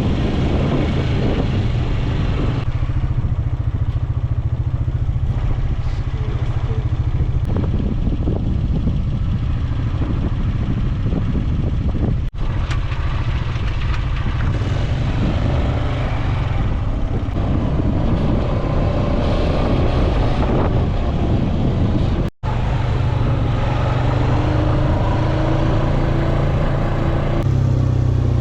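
Quad bike (ATV) engine running steadily as it is ridden off-road, cutting out briefly twice partway through.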